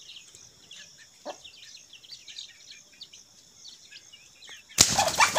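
Chicks peeping, a steady scatter of short, high, falling chirps. Near the end a sudden much louder burst of chicken calls and commotion breaks in.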